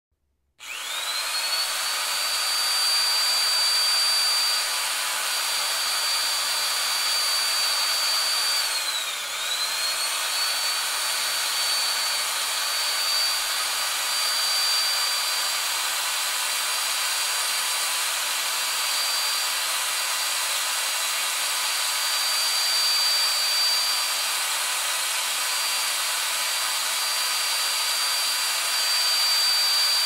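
Electric drill drilling into wood. The motor spins up about half a second in and then runs on with a steady high whine over a rushing noise. About nine seconds in its pitch dips briefly and then comes back up.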